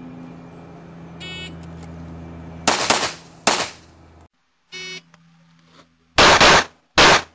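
Shot timer beep followed by a quick string of pistol shots; then a second timer beep and three rapid pistol shots fired as a double tap and a follow-up shot.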